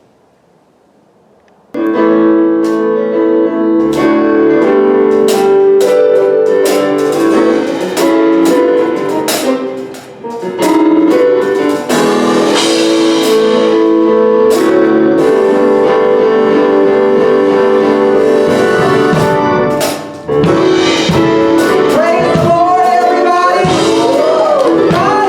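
Gospel music from a church music ministry starts suddenly about two seconds in, with held keyboard chords and drum hits. A singing voice comes in near the end.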